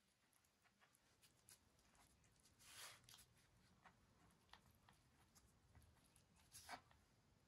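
Faint rustling and crinkling of a thin samosa pastry sheet being folded and rolled by hand around the filling, with a few soft taps. The loudest rustles come about three seconds in and again near the end.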